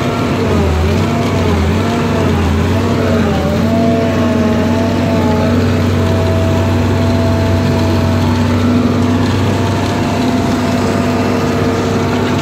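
A heavy machine's engine running steadily, heard from inside the operator's cab. Its pitch wavers up and down for the first few seconds, then holds steady.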